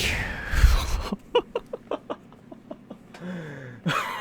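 Handling of trading cards and their packaging: a rustle with a dull bump on the microphone about half a second in, then a string of light clicks and taps.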